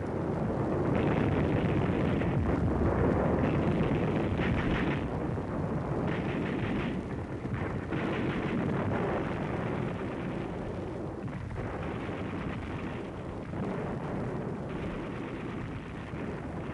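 Continuous din of battle gunfire and artillery rumble, a dense crackling rattle with no single shot standing out, easing off slightly toward the end.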